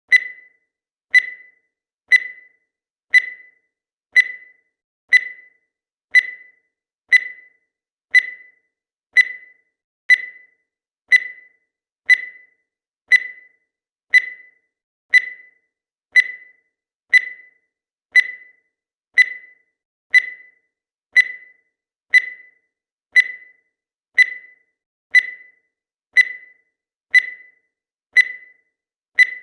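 Countdown timer's tick sound effect: a short, sharp, high electronic tick once a second, each dying away quickly, keeping an even pace throughout.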